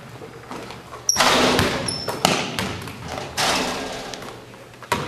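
Basketballs thudding on the gym floor, about four loud bounces spaced roughly a second apart, each ringing out in the big hall's echo.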